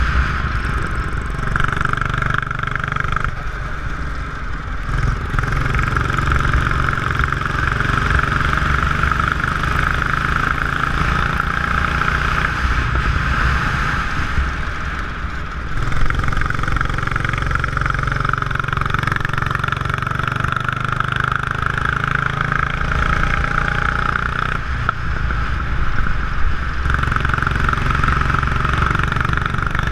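Go-kart engine running hard on track, heard close up from a camera mounted on the kart. It eases off briefly a few seconds in and again about halfway, then picks up sharply again.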